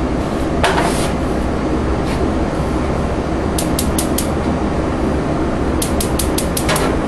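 Gas grill's spark igniter clicking in two quick runs of sharp ticks as a burner knob is turned, one run about three and a half seconds in and a longer one near six seconds, over a steady rushing noise.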